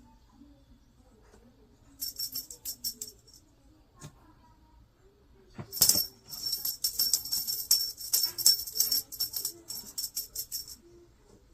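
A small jingle bell shaken in two irregular spells of rapid jingling, a short one about two seconds in and a longer one from about six seconds, with a sharp knock just as the second spell begins.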